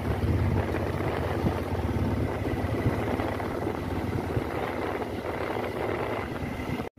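Steady engine and road rumble from a vehicle moving along a road, with wind buffeting the microphone. The sound cuts out for a moment near the end.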